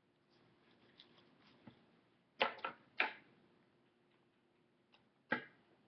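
A tobacco package being handled. Faint rustling, then three sharp taps or clicks in quick succession about two and a half seconds in, and one more near the end.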